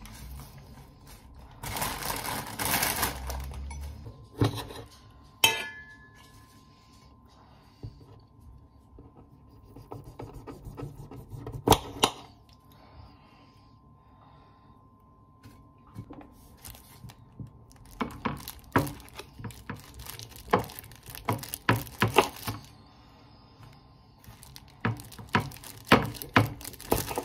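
Salad being made by hand: a plastic bag of arugula crinkles as the leaves are shaken onto a plate, then come scattered knocks and clicks of a knife against a plate while cherry tomatoes are cut, the loudest near the middle. Near the end a paper wrapper rustles and crinkles as goat cheese is unwrapped.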